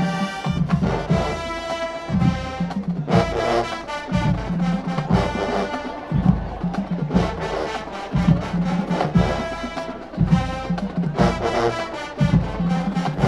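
Marching band playing loudly: the brass section plays short repeated chords over heavy drum and percussion beats.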